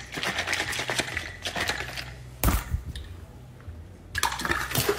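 Rapid rattling clicks of loose chunks shaken inside a plastic sports bottle, with one sharp knock about two and a half seconds in. The rattling starts up again near the end as the bottle is tipped up.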